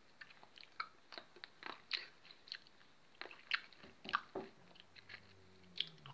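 A person chewing black grapes close to the microphone: faint, irregular crunches and mouth clicks, with a brief low hum near the end.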